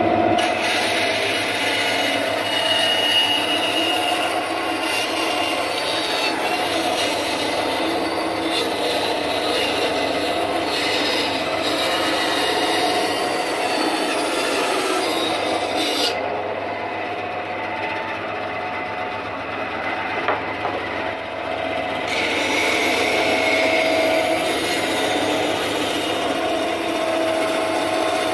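Aldi Ferrex 10-inch benchtop bandsaw running steadily and ripping a strip of 18 mm plywood, the motor hum carrying the rough rasp of the blade cutting through the board. The high hiss of the cut thins for a few seconds past the middle, then comes back.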